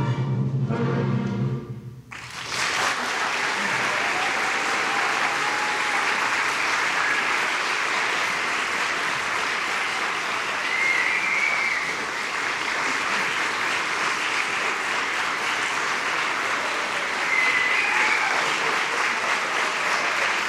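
A small live orchestra with strings and brass sounds the final chords of a waltz, cutting off about two seconds in. After a brief pause, an audience applauds steadily, with a couple of short higher-pitched calls rising over the clapping.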